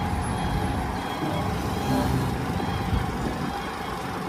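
Dump truck's diesel engine running steadily while the tipper bed is raised hydraulically.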